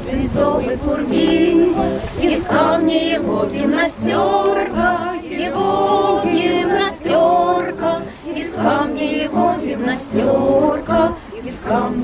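A small group of voices singing a Russian wartime song together in long held notes.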